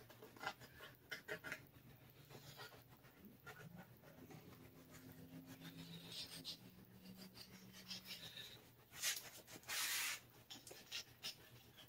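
Faint scratching and rustling as a utility knife cuts through fabric and the cloth is lifted and handled. A low, steady hum sounds in the middle, and a short, louder hiss comes about nine seconds in.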